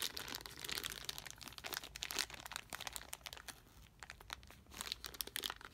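Plastic zip-top bag of small ink sample vials crinkling as it is turned over in the hand: a rapid run of faint crackles that eases off a little past halfway and picks up again near the end.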